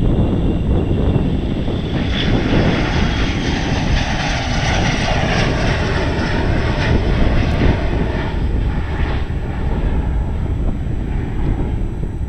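Twin rear-mounted Rolls-Royce AE 3007 turbofans of an Embraer ERJ 145 at takeoff thrust as the jet lifts off and climbs away. The jet roar swells about two seconds in and eases after about nine seconds, over a steady low rumble.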